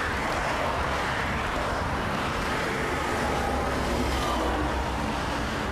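Steady road traffic noise of passing cars, with a low rumble throughout.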